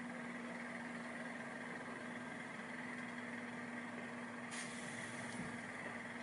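Tipper lorry's engine idling faintly and steadily, a constant hum with one steady tone.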